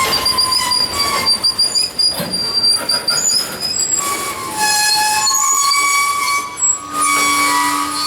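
Freight train wheels squealing against the rails as the cars roll slowly past, several high, wavering squeals overlapping and shifting in pitch.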